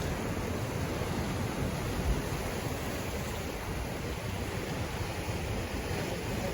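Pacific Ocean surf washing in as a steady, even rush of water.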